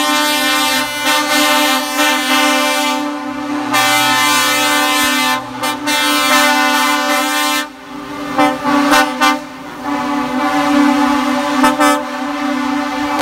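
Truck air horns from a convoy of lorries blowing almost without a break, several long blasts overlapping. A run of short, quick toots comes a little past the middle.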